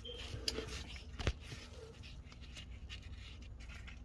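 Faint handling noise: a few light clicks, the sharpest about a second in, over a low steady hum.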